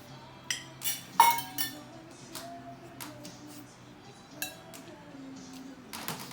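Cutlery clinking against a plate several times during a meal, the loudest a ringing clink about a second in, with soft background music underneath.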